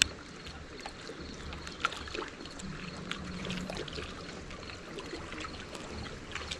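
Small waves lapping and sloshing against shoreline rocks, with scattered light clicks and one sharp click right at the start.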